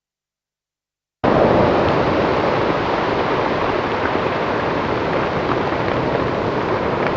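Wind noise on the microphone: a steady rushing that cuts in abruptly about a second in, after dead silence.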